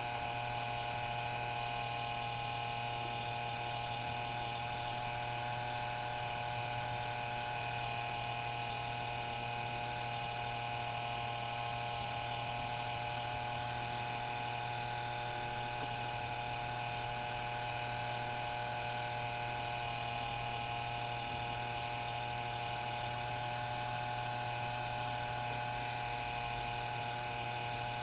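Model chairlift running: the steady whir and hum of its small electric drive motor, with the haul cable running over the tower's sheave wheels.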